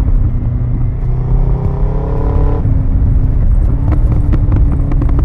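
Suzuki Hayabusa inline-four running through a de-catted exhaust over a heavy low rumble. From about a second in its note rises, then cuts off sharply about two and a half seconds in. A string of sharp exhaust pops and crackles follows, the popcorn-machine crackle of the de-catted exhaust on the overrun.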